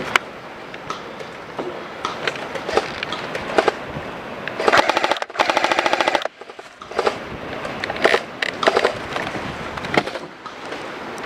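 Airsoft gun firing on full auto: a rapid, evenly spaced burst lasting about a second and a half near the middle, with scattered single shots and sharp snaps before and after it.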